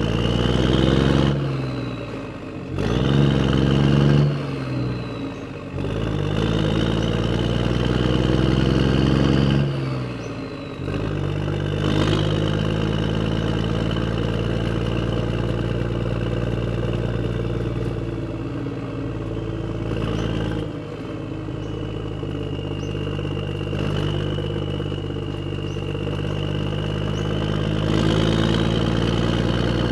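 Tractor engine running, revving up and dropping back a few times in the first ten seconds, then running steadily.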